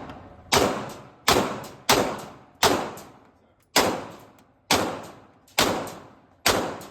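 Eight single semi-automatic gunshots fired one at a time, roughly one a second. Each shot is a sharp crack followed by a quick echo and a fading reverberation.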